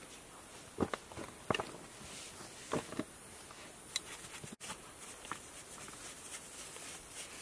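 Faint scrapes, clicks and taps of small hand tools and a brush working at rock while digging out fossils. The louder knocks fall in the first three seconds, with a brief gap about four and a half seconds in.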